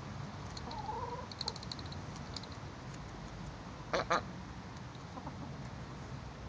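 Domestic duck quacking: two short, loud quacks in quick succession about four seconds in, after a fainter call about a second in.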